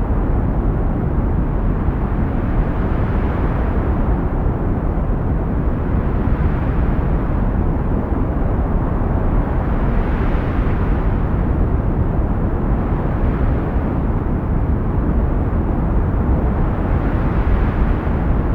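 Heavy wind blowing as a steady, low rushing noise. Gusts swell about every seven seconds, a few seconds in, about halfway, and near the end.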